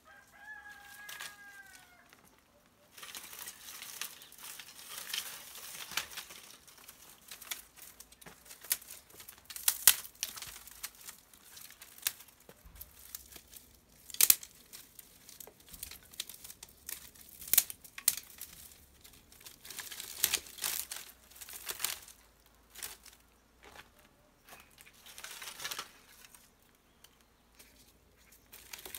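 Dry sticks and twigs snapping and crackling as they are broken by hand and piled up as kindling, in an irregular run of sharp cracks with a few loud single snaps. A short falling call sounds once near the start.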